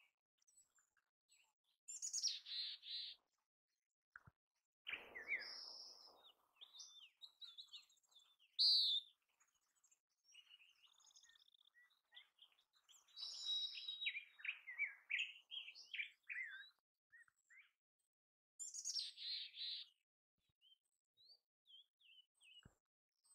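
Mountain chickadee calling: bouts of short, high chirps and buzzy call notes with quiet gaps between them, the busiest run coming in the middle.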